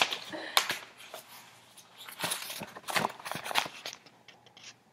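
Paperback book pages rustling and flapping as they are turned and the book is handled, in several irregular bursts that die away about four seconds in.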